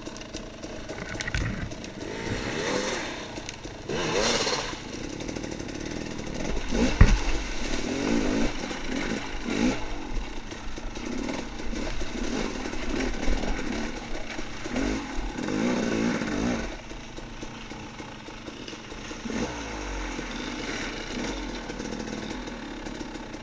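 Off-road dirt bike engine revving up and down while riding, with one sharp knock about seven seconds in.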